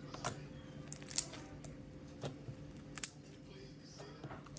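Slime being squeezed and stretched in the hands, giving a few sharp pops and clicks as air pockets burst.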